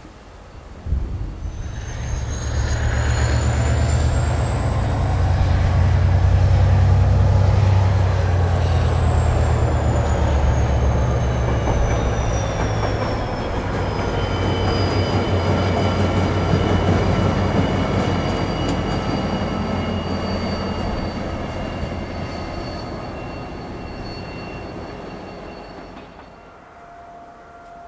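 Irish Rail 071 Class locomotive's twelve-cylinder EMD diesel engine passing at speed. A deep engine rumble builds about two seconds in and fades slowly over the last ten seconds, with a high whine that climbs as it approaches and falls away as it goes by.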